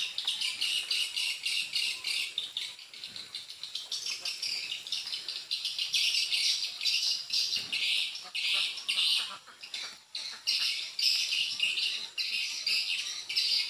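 Swiftlet lure call (suara panggil) played from a swiftlet house's speakers: dense, rapid, high-pitched chirping and twittering, repeated without pause, broken by short dips near the end. The call is meant to draw swiftlets in to form a nesting colony.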